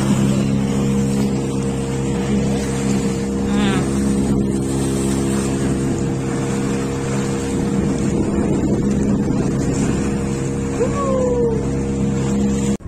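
Motorboat engine running steadily at speed, with water rushing against the hull and wind on the microphone. A short falling cry is heard near the end.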